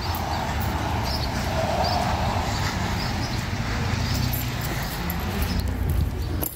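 Footsteps on a concrete sidewalk, a little under two a second, over a steady low rumble.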